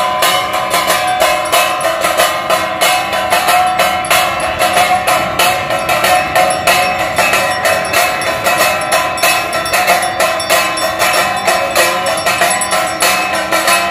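Aarti bells and gongs being struck rapidly and continuously, several strikes a second, with a steady metallic ringing underneath, accompanying the fire-lamp offering.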